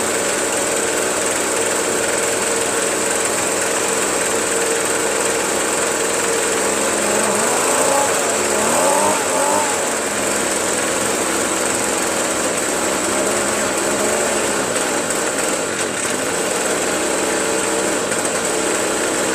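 Ryobi 25.4cc two-stroke backpack leaf blower engine running steadily at idle, its speed wavering briefly about eight seconds in. It keeps running despite the kill switch, whose ground wire is not making contact.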